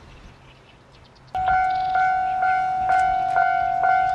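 Railway level-crossing warning bell starting abruptly about a second in and ringing at about two strikes a second, a signal that a train is approaching.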